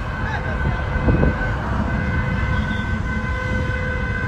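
Low engine and road rumble from inside a moving car, with a long, steady high-pitched warning tone from traffic held over it. The tone breaks off about a second in and resumes about two seconds in.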